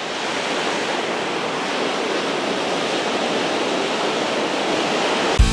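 Ocean surf breaking and washing up a sandy beach: a steady, even rush of waves, cut off right at the end by the start of music.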